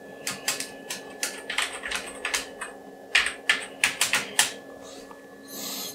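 Computer keyboard keys pressed rapidly and irregularly, about four presses a second, while playing a game. A short hiss comes near the end, over a faint steady hum.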